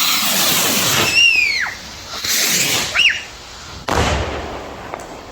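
Consumer fireworks going off: a loud hissing spray, then two short whistles that fall in pitch, and a sharp bang about four seconds in.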